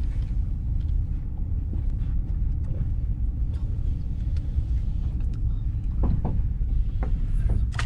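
Car running slowly along a wet road, heard from inside the cabin as a steady low rumble.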